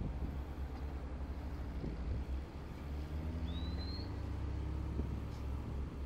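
John Deere 670G motor grader's diesel engine running steadily under load, its pitch rising a little in the middle, while the lowered blade works over loose gravel. A short high rising whistle sounds about three and a half seconds in.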